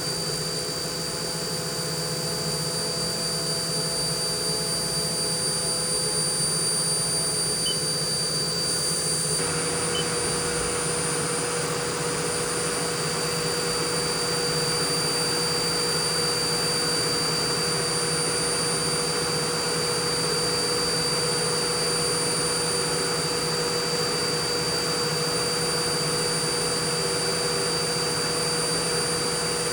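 Haas CNC mill running a profile cut on a mother-of-pearl inlay, its spindle giving a steady high whine. About nine seconds in, a vacuum for the pearl dust switches on and adds a steady rushing hiss with a hum.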